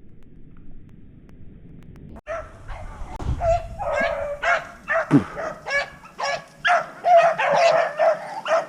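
Rabbit-hunting dogs barking and yipping in a rapid run of short calls, starting about two seconds in, as they come in on the trail of the shot rabbit.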